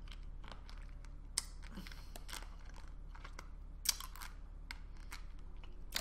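Faint mouth sounds of chewing a salty-licorice hard candy: scattered soft clicks and crunches, with a few sharper ones.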